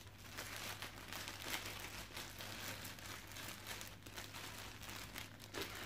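Clear plastic bag crinkling continuously as it is handled and pulled open by hand, with a louder crackle near the end.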